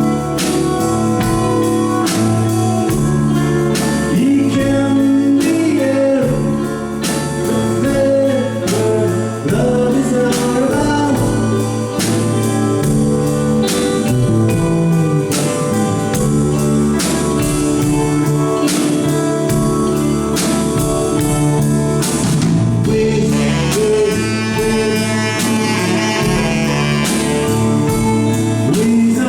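Live rock band playing a slow song, with a sung lead vocal over sustained guitar and band accompaniment.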